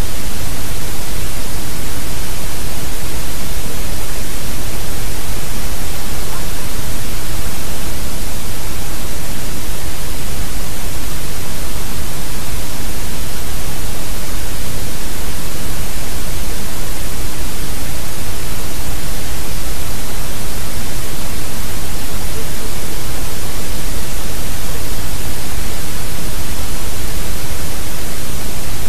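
Loud, steady hiss of static-like noise spread evenly over all pitches, with no change in level or pitch and no distinct events.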